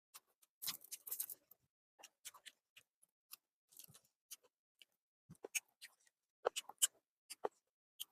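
Close-miked eating sounds: irregular wet clicks and smacks of chewing and mouth sounds as chicken liver curry is eaten, with a louder cluster about a second in.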